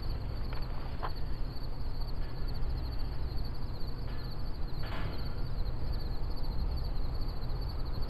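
Insects calling in the field as one steady, fast-pulsing high trill, over a continuous low rumble. A few faint clicks are heard, one about a second in and one a little past the middle.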